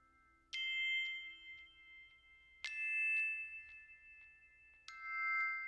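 Background music of bell-like chime notes: three notes struck about two seconds apart, each ringing on and fading.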